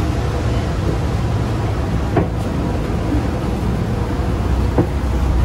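Passenger ferry's engines running with a steady low rumble, with two short knocks about two seconds in and near the end.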